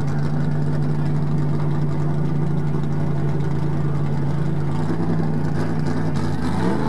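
Stock car V8 engine idling steadily on pit road. Near the end an engine note rises and falls.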